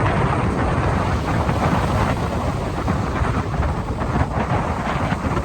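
Strong wind buffeting the microphone, a steady loud rush heaviest in the low end.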